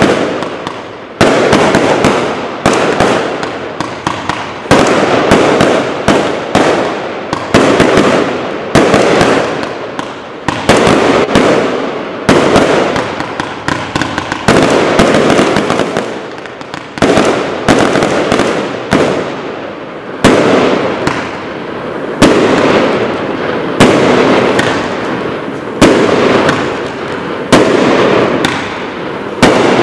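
A 70-shot fireworks cake firing shot after shot, a sharp bang roughly every one and a half to two seconds, each followed by a spray of crackling that fades before the next.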